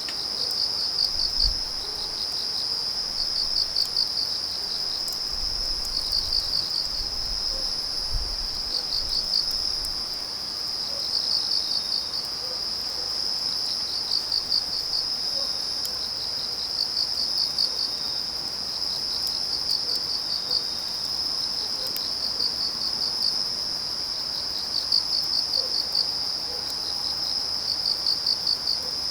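Autumn night crickets singing: one steady high trill, with another insect chirping short groups of rapid pulses every second or two. A few faint pops from the burning firewood come through.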